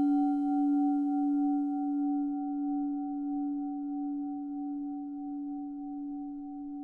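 A struck singing bowl ringing on after a single strike: a strong low tone with a clear higher overtone, slowly fading with a gentle wavering. It is sounded to close the meditation practice.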